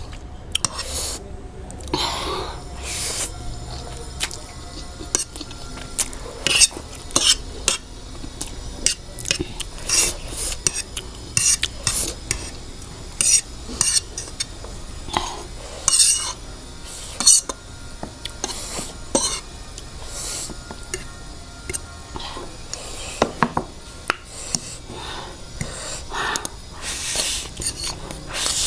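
Eating utensils clinking and scraping against a plate or bowl during a close-miked meal of noodles, chicken lollipops and fried eggs, in irregular short, sharp strokes, a few every second.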